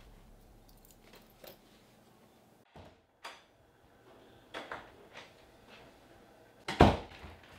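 Door noises: a few soft knocks and clicks, then one sharp, louder knock near the end.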